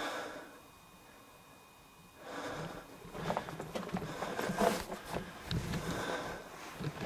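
A brief breath at the start, then from about two seconds in, irregular crunching footsteps on gravel and sand, with breathing.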